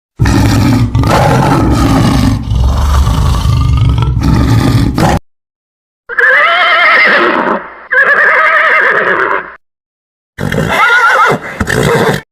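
Horse whinnies: three separate calls, each about one and a half to two seconds long with a quavering pitch, split by short dead-silent gaps. They follow a longer, deeper, denser sound lasting about five seconds.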